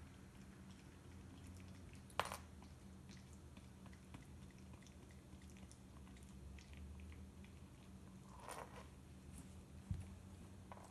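A dog chewing a plush squeaky toy: the squeaker gives short squeaks about two seconds in and again about eight seconds in, with faint clicks of teeth between them and a soft thump near the end.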